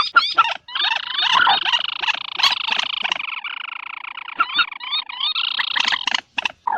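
Calls of the bird known in Indonesia as burung peruk, used as a night lure: a few short notes, then a dense, rapid run of rising chirps lasting several seconds, then a few separate notes again near the end.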